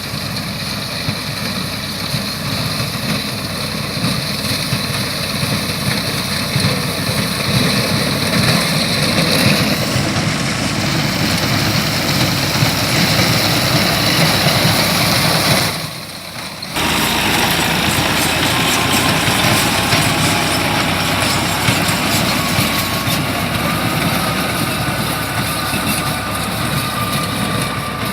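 Engine-driven wheat harvesting machinery running steadily with a dense mechanical rumble and rattle. The sound drops away for under a second about halfway through, then carries on as before.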